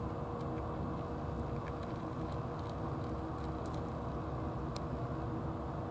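Steady low rumble with a faint constant hum, over which a cat chewing dry kibble gives scattered small crunches.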